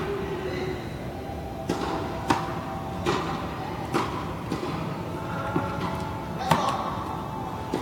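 Tennis balls struck by rackets and bouncing on an indoor hard court during a rally: a string of sharp pops, about one a second.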